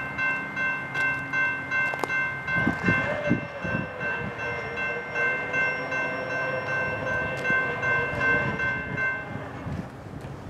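Railroad grade-crossing warning bell ringing in quick, even strokes, stopping about nine seconds in. A fainter, lower train-horn tone sounds under it from about three seconds in as the train approaches.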